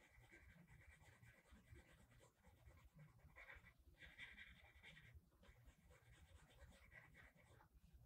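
Faint scratchy rubbing of a paper tortillon (blending stump) over graphite on drawing paper, in strokes of a second or so with brief breaks, softening grainy shading.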